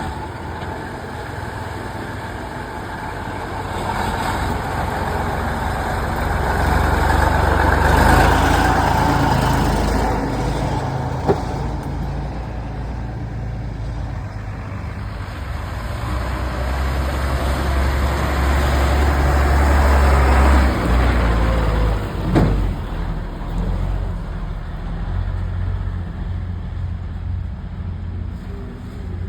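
Heavy trucks' engines running under load as they drive, with a low rumble that swells louder twice, around eight and twenty seconds in. There is a sharp knock about eleven seconds in and another about twenty-two seconds in.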